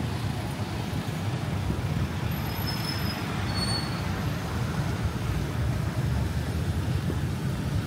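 Steady road traffic: a continuous low rumble of passing vehicles, with a few brief high-pitched chirps a few seconds in.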